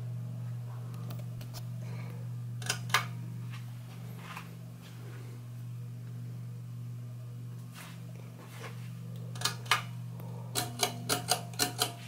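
Beverly Hills Fan Co. Trout ceiling fan running, its motor giving a steady low hum. Sharp clicks come through it: a couple about three seconds in, two more later, and a quick run of about six near the end.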